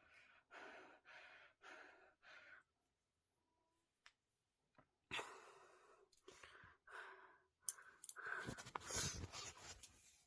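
A woman breathing heavily through an irritated nose just after a sneeze: four quick breaths, then a sharp breath about five seconds in. A rustling, crackly noise follows near the end.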